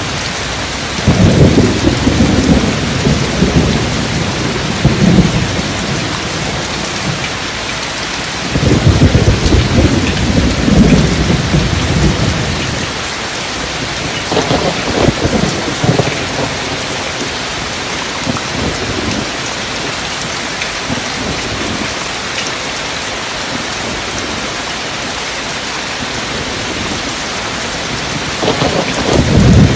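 Steady rain with four low rolls of thunder, the first about a second in, the next two near the middle, and another building near the end.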